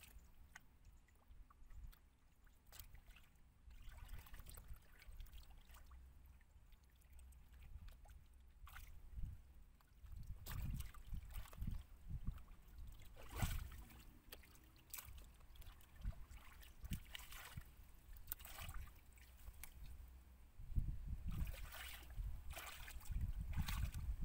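Hands sloshing and splashing in shallow muddy water while feeling for fish in the mud, in irregular splashes over a steady low rumble. The splashing gets busier and louder about ten seconds in, and again near the end.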